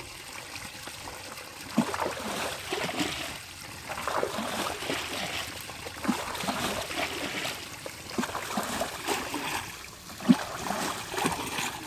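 Water splashing and sloshing in irregular bursts, with a sharper splash about two seconds in and another near the end.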